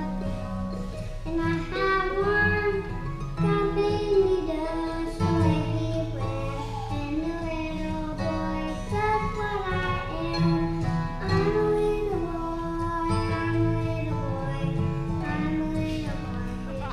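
A song with a sung melody over guitar and a steady bass line.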